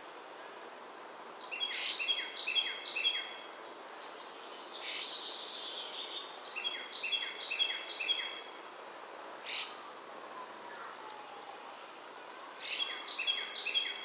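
A songbird singing three short songs, several seconds apart, each a quick run of about four repeated, down-slurred notes, over a steady outdoor hiss. A faint falling whistle comes a little after the middle.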